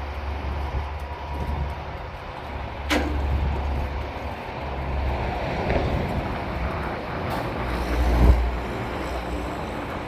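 Crane truck's engine running steadily with a low rumble. A sharp metallic clank comes about three seconds in, and a heavier thump near the end.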